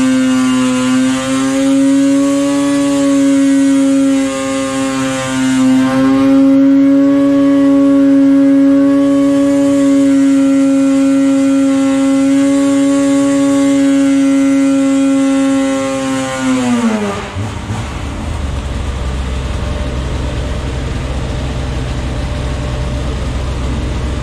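Polaris Axys 800 two-stroke twin snowmobile engine, fitted with a Jaws single pipe and stock silencer, held at wide-open throttle around 8,000 RPM during a dyno power pull: a loud, steady high drone. About seventeen seconds in the throttle is released, the pitch falls away quickly, and a low steady rumble follows.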